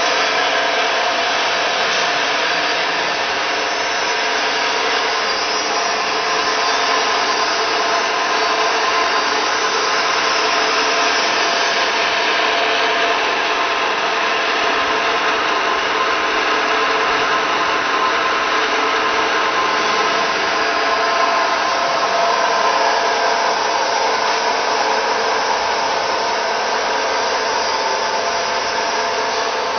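Rib plough mixer running steadily with its electric drive: a constant whine of several steady tones over an even hiss.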